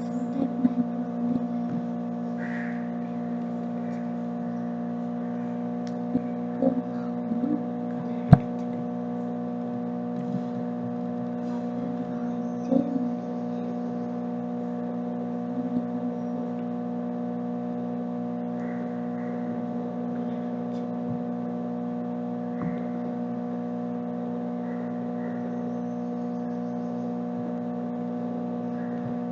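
Steady electrical hum made of several fixed tones, with a few light knocks and taps as a clay pot and paintbrush are handled on a table; one sharp click about eight seconds in.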